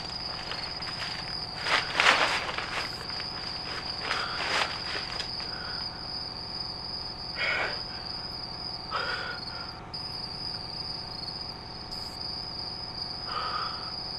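Crickets chirring steadily in a high, even tone, with a few short noises over it, the loudest about two seconds in.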